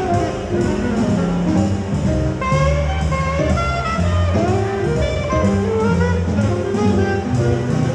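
Jazz music with saxophone and drums, playing without a break.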